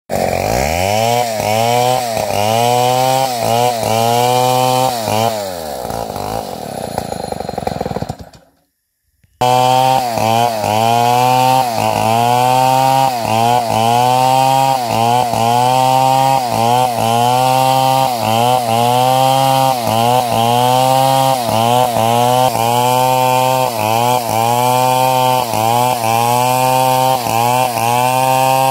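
Chainsaw cutting through large timber, its engine pitch dipping and recovering about one and a half times a second as it loads up in the wood. About six seconds in it winds down and stops briefly, then it is back under the same rhythmic load.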